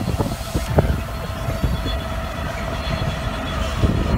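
British Rail Class 66 diesel freight locomotive passing, its EMD two-stroke V12 engine running with a low rumble and a steady whine. A few light knocks come through, and the sound grows louder and busier near the end as the locomotive comes closer.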